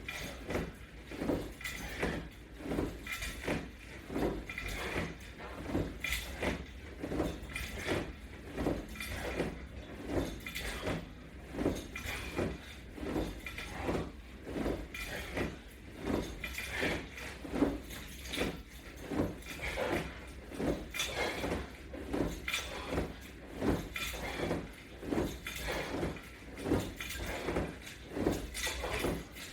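Steady rhythmic sounds of repeated exercise strokes on a resistance band attachment system, about one and a half strokes a second.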